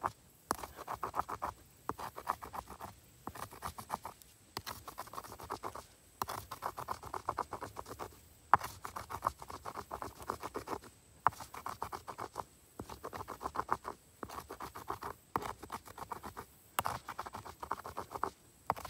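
Dry wheat ears being rubbed hard between the palms to dehusk them: the crisp husks rustle and crackle in repeated strokes about every second and a half, with the odd sharp crack.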